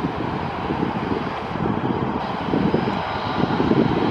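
Twin jet engines of an easyJet Airbus A320-family airliner running at low taxi power as it rolls past, a steady jet rumble.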